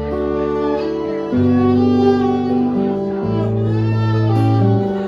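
Instrumental break in a folk song: a fiddle plays a melody over long held bass notes, with the harmony changing about a second and a half in and again past three seconds.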